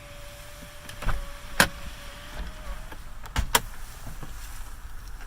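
Power sunroof motor of a 2013 Toyota Highlander running with a steady whine that stops about three seconds in. Several sharp clicks and knocks come over it, the loudest about a second and a half in.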